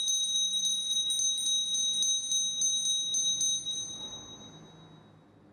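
Altar bells rung in quick repeated strikes, about three a second, marking the elevation of the consecrated host. The ringing stops about three and a half seconds in and dies away.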